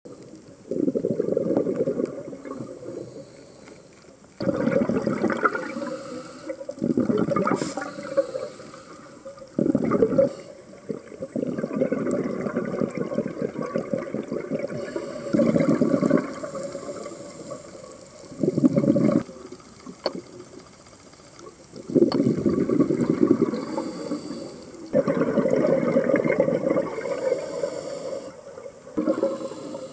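Water gurgling and rushing in irregular surges, each lasting from a second to several seconds, with quieter gaps between.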